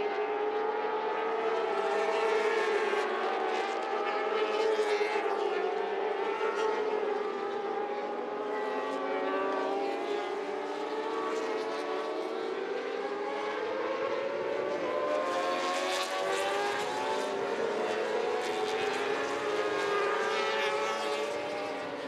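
Several Moto2 racing motorcycles running close together at high revs, their engine notes overlapping and rising and falling in pitch as the riders change gear.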